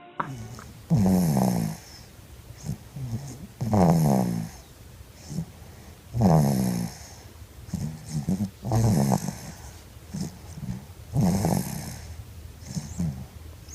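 A baby snoring in a steady rhythm: a loud snore about every two and a half seconds, each one falling in pitch, with softer breathing sounds between them.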